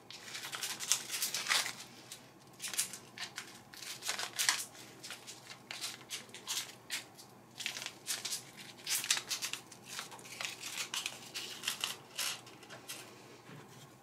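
Small clear plastic bag of drive screws crinkling and rustling as it is opened and handled, with scattered small clicks and taps of handling throughout.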